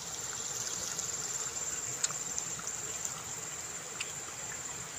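Insects calling in a steady, high-pitched drone over a faint hiss like running water, with a few soft clicks.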